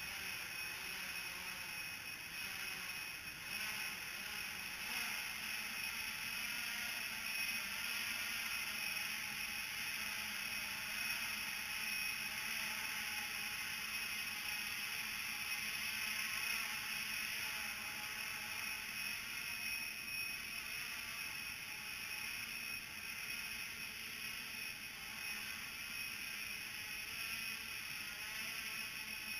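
Small multirotor drone's electric motors and propellers running with a steady whir and a constant hum, the drone hovering low while holding altitude on its barometer. The concrete car park makes it echo.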